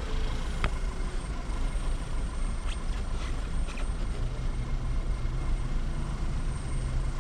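2010 VW Tiguan's 2.0 L TSI four-cylinder engine idling steadily while misfiring on all cylinders, with a faint steady high-pitched whistle from a leaking PCV system, the cause of a lean misfire.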